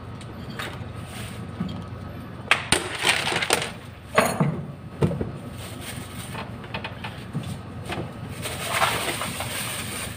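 Clinks and clatters of hand tools and wires being handled during wiring work: a run of sharp clicks about two and a half to five seconds in, then a scratchy rustling near the end.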